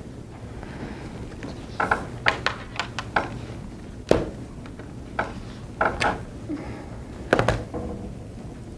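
Soft knocks, taps and clicks, about a dozen of them at irregular intervals, over a steady room hum; the sharpest come about four seconds in and near the end.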